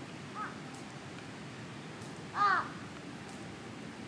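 An animal call, twice, each rising and then falling in pitch: a faint short one about half a second in, then a louder one a little past the middle, over a steady background hiss.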